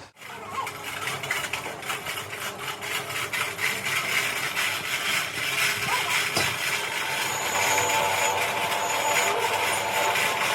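Workshop machinery running steadily with a dense mechanical noise; from about seven seconds in a faint high whine and a steady mid tone join it.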